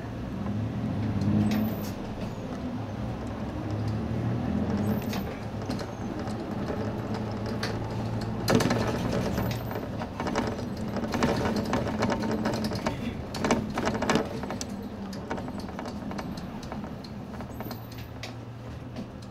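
Nissan Space Runner city bus running in traffic, heard from inside the cabin: its engine drone rises and falls in pitch as the bus speeds up and eases off. Through the middle come a string of sharp clatters and rattles from the bus.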